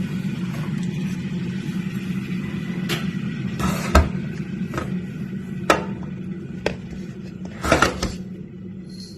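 A handful of sharp clinks and knocks from utensils and dishes while baby cereal is prepared, over a steady low hum.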